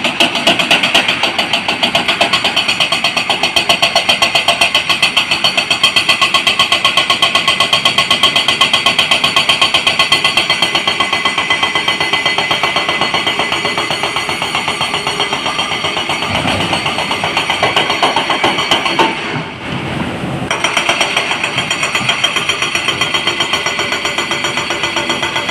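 Heavy diesel engine running close by with a fast, even clatter. About three-quarters through it briefly gives way to a low rumble before the clatter returns.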